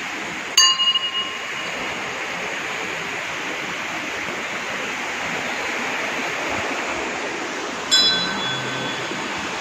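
Hanging temple bells rung twice over steadily running water. About half a second in, one bell gives a few quick strikes that ring on for about a second. Near the end a single strike sounds on a bell of a different pitch.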